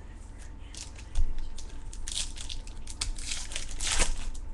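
Foil wrapper of a trading card pack crinkling and tearing as it is handled and opened, a rapid run of crackles with a knock about a second in.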